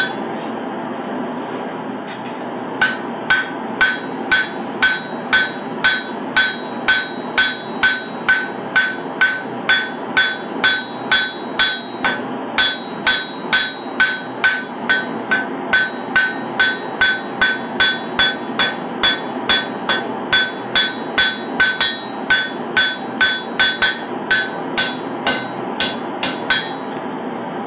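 Hand hammer striking a red-hot katana blade on a steel anvil, forging the blade's bevels: evenly paced blows at about two a second, each with a bright metallic ring. The hammering starts about three seconds in and stops shortly before the end.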